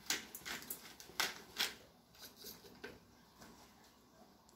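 Black peppercorns being crushed by hand inside a paper towel: sharp crinkles and crunches, about three a second, that thin out after about two seconds into a few faint ticks.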